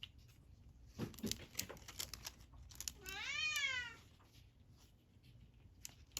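A cat meows once, about three seconds in: one call of about a second that rises and then falls in pitch. Before it there are some light clicks and rustling.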